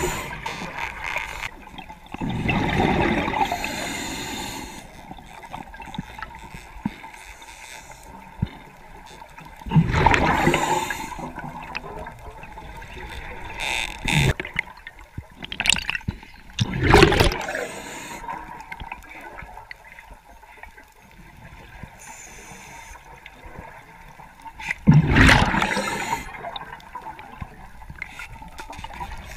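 Water sloshing and gurgling, with loud surges every few seconds.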